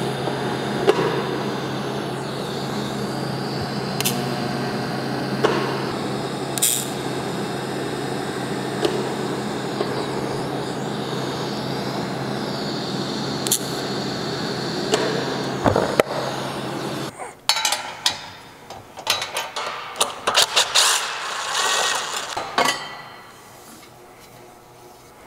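TIG welder arc buzzing steadily with a low hum while a stainless-steel downpipe is welded in a jig, with a few sharp clicks. The buzz stops about seventeen seconds in, followed by a run of clanks and rattles of metal parts being handled.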